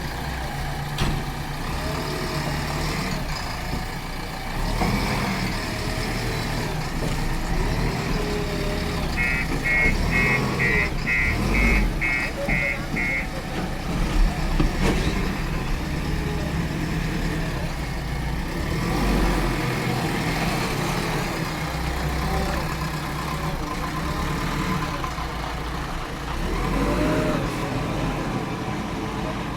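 Heavy diesel engines of a JCB 3DX backhoe loader and trucks running steadily throughout. About nine seconds in, a quick series of roughly eight short high beeps sounds over some four seconds.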